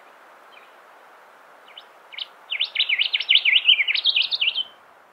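Male rufous whistler singing. A few soft single notes come first, then about halfway through a fast run of loud whistled notes that sweep steeply up and down, lasting about two seconds and stopping shortly before the end.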